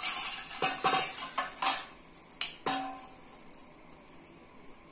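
Metal utensils clinking and clattering against a stainless steel bowl: a quick run of sharp clinks, some with a short metallic ring, over the first three seconds, then it goes quiet.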